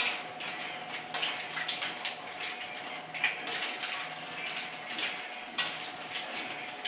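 A cooking utensil scraping and stirring food in a pan on the stove, in irregular strokes a few times a second, over a steady faint hum.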